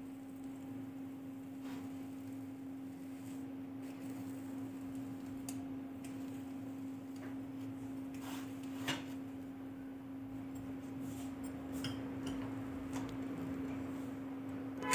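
Faint steady hum under a few soft, scattered clicks and scrapes from a metal ice cream scoop working through frozen ice cream in a plastic tub.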